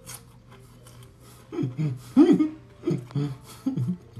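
A man making four short closed-mouth "mm" hums with his mouth full, pitch rising and falling, starting about a second and a half in.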